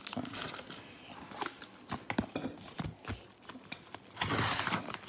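Trading cards and their packaging being handled: scattered light taps and clicks, then a longer rustle about four seconds in.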